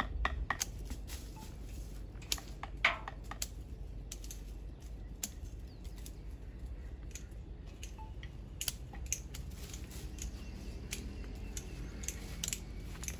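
Hand pruning shears snipping twigs and leaves on potted ficus bonsai: sharp, irregular clicks, roughly one every second or so, with a clump of snips near the end, over a faint low steady rumble.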